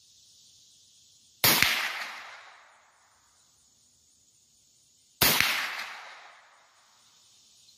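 .22 caliber rifle firing two single shots about four seconds apart, each a sharp crack followed by an echo that dies away over a second or so.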